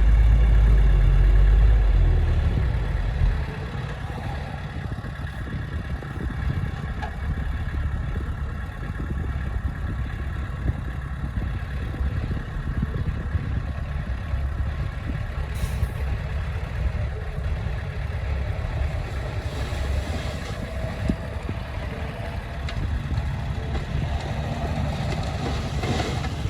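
Diesel engine of heavy earthmoving machinery running. A loud low rumble for about the first three seconds drops to a steadier, quieter running note.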